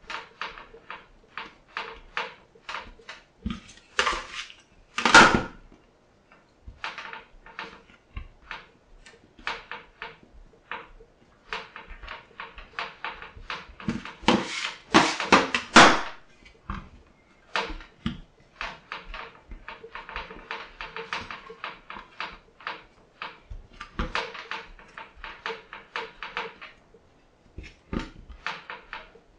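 Hands kneading pasta dough on a stainless steel counter: many short taps and knocks. A metal bench scraper scrapes across the steel a few times, loudest at about five seconds in and again at about fifteen seconds.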